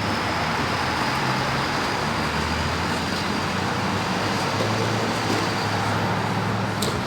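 Road traffic: a motor vehicle's engine running over a steady hiss of road noise, with a faint steady high whine that stops near the end.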